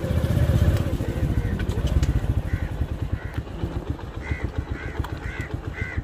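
Small motorcycle engine running at low speed, growing quieter over the second half. From about halfway in, a bird calls repeatedly, roughly twice a second.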